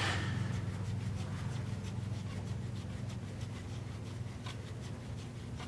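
Light scattered metal clicks and rubbing as a brass connector tube puller is threaded by hand into the injector connector tube in the side of a 5.9 Cummins 24-valve cylinder head, over a steady low hum.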